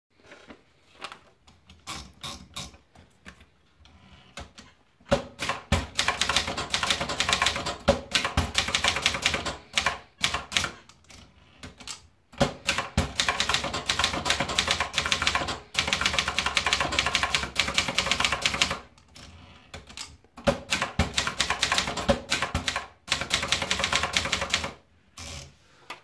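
Vendex 750 manual typebar typewriter. Scattered light clicks come first as a sheet of paper is fed in, then about five seconds in comes fast typing in long runs of rapid key strikes, broken by short pauses.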